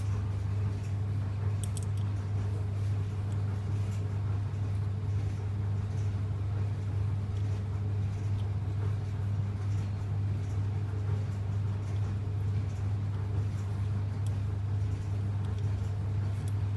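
Steady low electrical hum with faint scattered clicks and scrapes of metal grinder parts being handled and turned.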